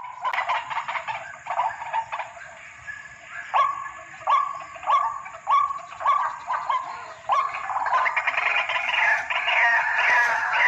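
White-breasted waterhen (ruak-ruak) calling: a harsh croaking note repeated about every two-thirds of a second, turning into a faster, denser run of calls after about seven seconds.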